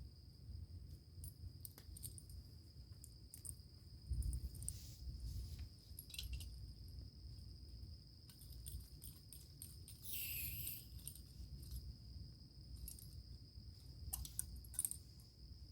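Insects, likely crickets, giving one high thin unbroken note, with scattered small clicks and rustles and a short hiss about ten seconds in. A low rumble lies underneath.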